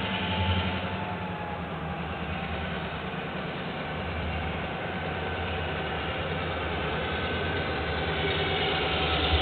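A heavy engine idling steadily out of sight: a low, even hum that slowly swells and grows a little louder near the end.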